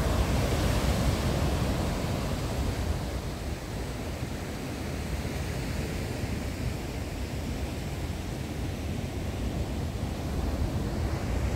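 Sea surf washing against a rocky shore, a steady rushing noise with wind on the microphone. It eases a little after about three seconds.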